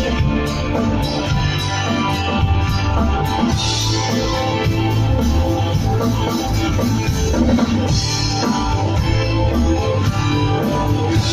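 Guitar-led instrumental rock music with a steady bass line underneath.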